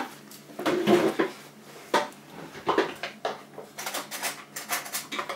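Irregular clinks and knocks of metal kitchen items being handled, someone rummaging for a pair of scissors.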